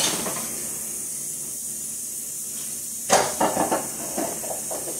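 Steady hiss of food sizzling on a hot cooking surface, with a short clatter of knocks from a cooking utensil about three seconds in.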